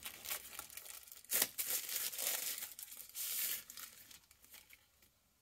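Thin plastic bag being torn open and crinkled by hand: several sharp rustling tears, the loudest about a second and a half in, dying away by about four seconds in.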